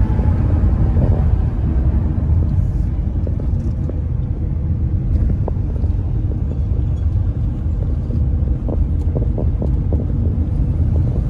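Car driving at road speed, heard inside the cabin: a steady low rumble of engine and tyre noise.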